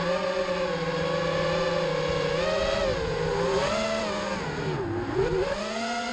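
Brushless motors and three-blade 5-inch propellers of an FPV racing quadcopter (Emax 2505 2300kv motors) whining, heard close up from the onboard camera. The pitch wavers with throttle, dips sharply about four and a half seconds in, then climbs back.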